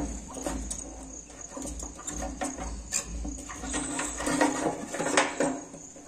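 Irregular clicks, taps and rustles of hands working on a motorcycle fuel tank and the fuel pump's wiring and connector during fuel pump removal.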